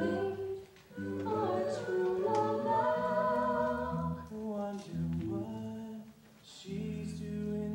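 A male and a female voice singing a slow stage-musical duet over a sustained accompaniment, pausing briefly between phrases about a second in and again near the end.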